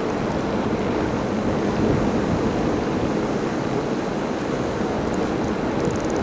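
Steady rushing noise with a low rumble on the camcorder's built-in microphone, with a few faint high ticks near the end.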